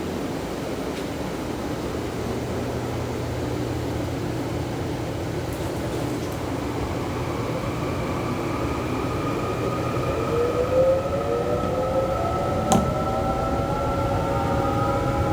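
A train pulling away, heard from on board: steady rolling and rumbling noise, with a whine that rises in pitch from about ten seconds in as the train gathers speed. One sharp click near the end.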